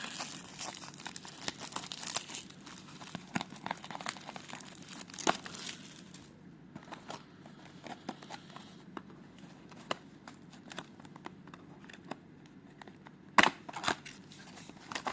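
Packaging of a trading card box being torn open and crinkled, a dense run of crackling in the first half thinning to scattered clicks, with one loud sharp snap near the end.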